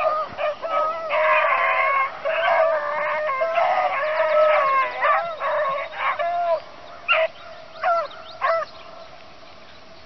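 A pack of beagles baying in chorus as they run a rabbit on scent, thinning out about six and a half seconds in to a few single bays.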